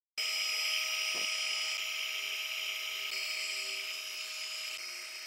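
Electric heat gun running, a steady whine from its fan over a rush of hot air, as it shrinks a heat-shrink solder-seal connector on a wire. The sound cuts in abruptly just after the start.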